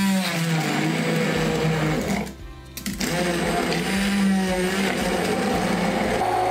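Hand-held immersion blender running in a plastic beaker, chopping and puréeing cherries with sugar. It stops briefly a little over two seconds in, then starts again and keeps running.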